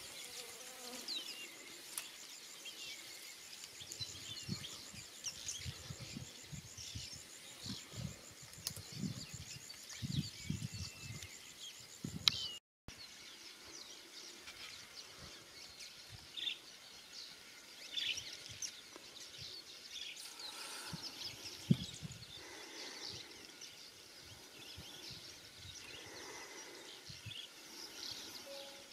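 Outdoor bush ambience: a high, even insect trill with buzzing, scattered short bird chirps, and occasional low bumps and rustles. The trill stops about halfway through.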